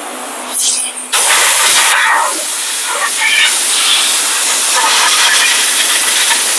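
Compressed-air blow gun blasting rust and brake dust off a rear brake hub and bracket, a loud steady hiss of air that starts about a second in.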